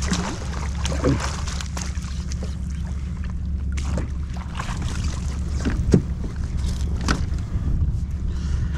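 Wind rumbling steadily on the microphone aboard a fishing kayak, with scattered knocks and taps as a small redfish is brought aboard; the sharpest knock comes about six seconds in.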